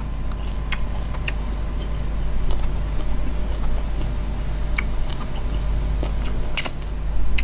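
A steady low hum runs throughout, under faint scattered clicks as fingers pick at and pull apart soft rice noodles over papaya salad. One sharper click comes near the end.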